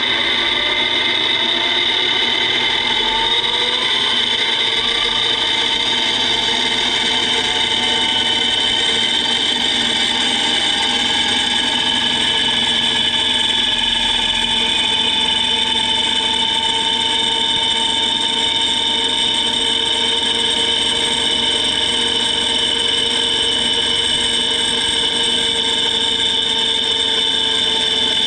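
High-speed whine of a dry, unlubricated 3D-printed PLA straight-cut spur gear train and its electric drive motor. The pitch climbs over the first few seconds as it spins up, then holds as a loud, steady high-pitched whine with the output reading about 22,600 rpm.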